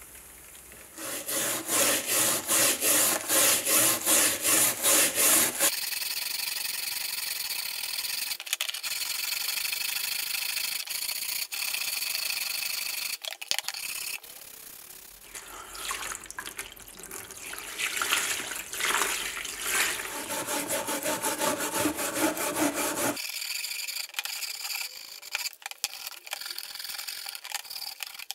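Hand brush scrubbing the rusted steel blade of a WW1 Mannlicher M1895 ersatz bayonet in a shallow bath of liquid, scraping off rust. It starts with loud back-and-forth strokes about two or three a second, then goes to steadier scraping, with a second run of quicker strokes later on.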